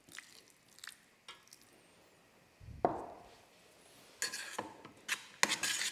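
Metal utensils clinking and scraping against a perforated stainless steel steamer bowl as couscous is stirred, with scattered clicks early, a single knock near the middle, and denser clattering over the last two seconds.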